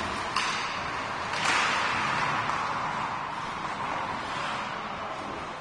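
Hockey game sound on a rink: a sharp clack about a third of a second in, then a swell of noise about a second and a half in that slowly fades.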